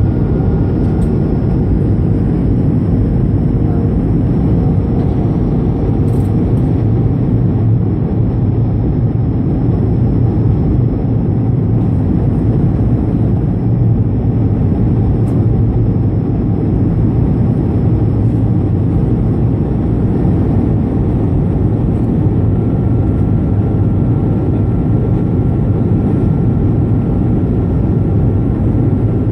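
Steady cabin noise aboard an Airbus A220-300 in flight: an even, low rumble from its Pratt & Whitney PW1500G geared turbofans and the air rushing past the fuselage, with a faint steady high tone on top.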